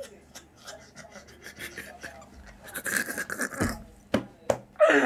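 Two men wheezing with near-silent, breathless laughter: breathy gasps and stifled squeaks that get louder about three seconds in, with two sharp bursts shortly after.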